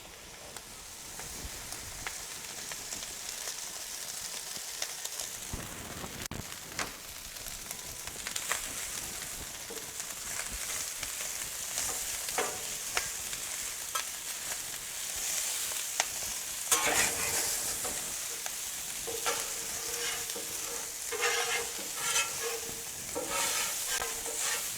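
Cooked rice frying in oil on a Blackstone flat-top griddle: a steady sizzle, with scattered scrapes and taps on the griddle as the rice is stirred and spread, more of them in the second half.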